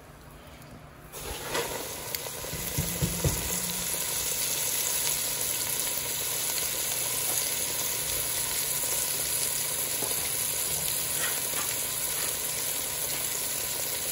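Flour-dredged beef shank frying in hot oil in a Dutch oven. After a quiet first second the sizzle starts suddenly as the meat goes in, with a few low knocks soon after, then it carries on as a steady sizzle while the shank browns.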